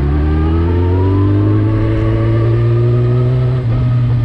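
Suzuki GSX-R1000's inline-four engine through an Akrapovic full exhaust, pulling hard with its pitch rising steadily, then dropping suddenly about three and a half seconds in at a gear change.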